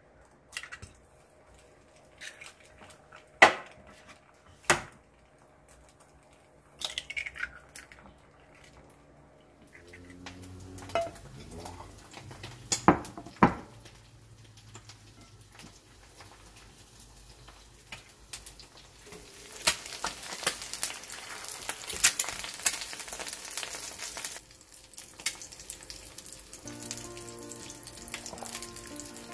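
Kitchenware clinking and knocking a few times, then food sizzling and crackling in a hot frying pan, loudest for a few seconds about twenty seconds in and then quieter.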